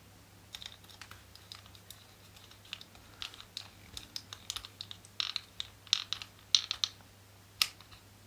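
Small screwdriver turning a tiny metal screw into a black plastic model-kit part: a string of irregular small clicks and scratches, thickest a little past the middle.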